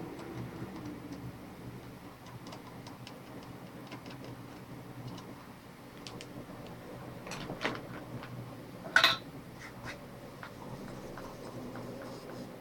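Faint room tone with scattered light clicks and taps of small tools being handled on a workbench, with a couple of louder knocks about seven to eight seconds in and a sharper click about nine seconds in.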